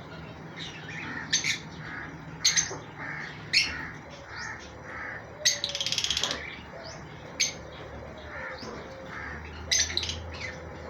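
Plum-headed parakeets calling: sharp, high-pitched squawks every second or two, with a short buzzing, rattling call about six seconds in, over softer chirps.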